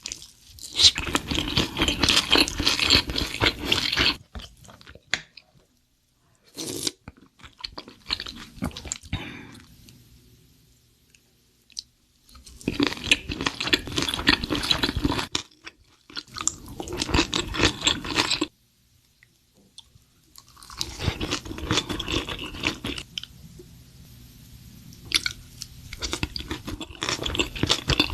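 Close-miked eating sounds: crunchy chewing and biting of food in several bouts of a few seconds each, with short pauses between.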